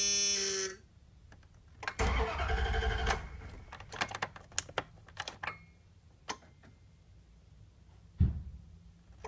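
Dodge 3500 van's starter cranking the engine for about a second without it catching, then a few clicks, a sharp thump near the end and another bout of cranking at the very end. The engine won't start with its original faulty ECM (engine computer). A steady electrical buzz cuts off under a second in.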